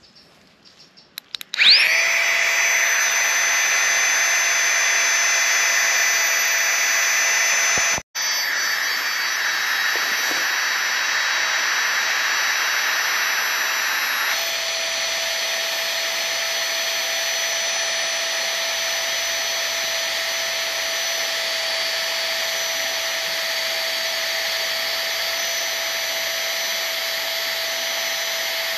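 A Flextail Tiny Pump X2, a small battery-powered air pump, is switched on with a few clicks and runs with a steady whine as it inflates a Klymit Static V sleeping mat. The sound breaks off for an instant about 8 seconds in. It carries on at a slightly different pitch from about halfway through.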